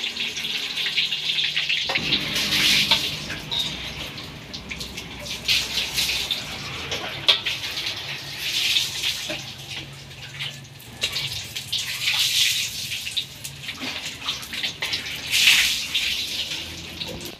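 Stuffed tofu deep-frying in a wok of hot oil: a steady sizzle with scattered crackling pops that swells several times as the pieces are turned and lifted out. The tofu is still full of water, which makes the oil sizzle hard. A low steady hum runs underneath from about two seconds in.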